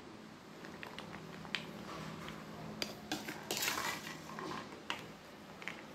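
A spoon clinking and scraping against a plate as peanut-and-chickpea chaat is stirred and served: a few scattered light clicks, with a louder clatter about three and a half seconds in.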